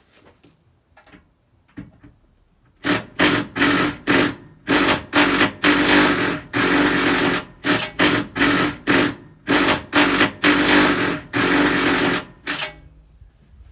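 A power tool run in about a dozen short bursts of varying length, a rattling noise over a steady hum, while undoing the classic Mini's rear subframe bolts.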